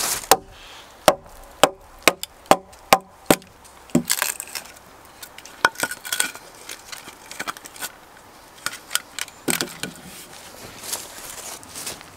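Small hatchet chopping into a short log resting on a wooden beam: a quick series of about eight sharp wooden knocks over the first four seconds, then lighter, scattered cuts and scrapes, with one harder blow about two-thirds through.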